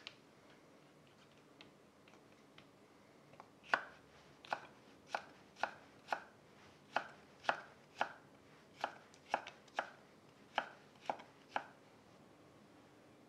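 Chef's knife cutting carrot into matchsticks on a wooden cutting board: crisp knocks of the blade through the carrot onto the board, about two a second in short runs of three or four. They begin about four seconds in and stop shortly before the end, after a brief soft shuffle at the start as the carrot slices are pushed together.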